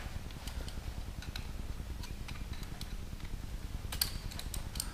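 Scattered light clicks and taps of TIG torch parts being handled as a sharpened tungsten electrode is fitted back into the torch's ceramic cup and collet, with a small cluster of clicks about four seconds in, over a low steady hum.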